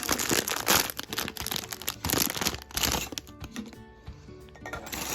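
Plastic bag crinkling and small LEGO pieces clattering, dense for about three seconds and then thinning out, over quiet background music.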